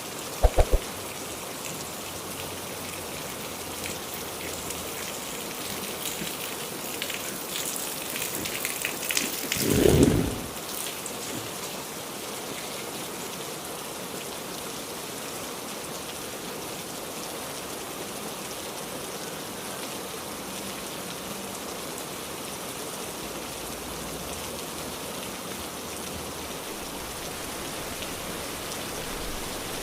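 Heavy rain falling steadily, an even hiss of rain on surfaces. There are a few sharp clicks near the start, and a brief, louder low swell about ten seconds in.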